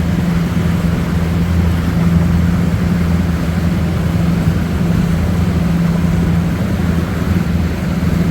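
Fishing boat's engine running steadily at cruising speed, a constant low hum over the rush of wind and water.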